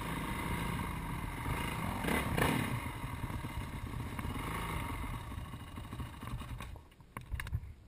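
Motocross bike's engine running as it rides along a gravel trail, with a brief louder surge about two seconds in. Near the end the engine sound drops away suddenly, leaving a few clicks: the engine stalls, as it would not stay idling.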